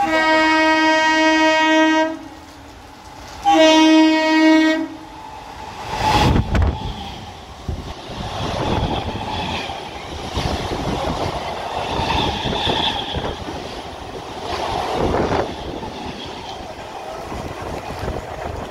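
Electric multiple-unit suburban train sounding two long horn blasts, the second one shorter, as it approaches at about 95 km/h. It then rushes past with wheel and rail clatter that carries on to the end.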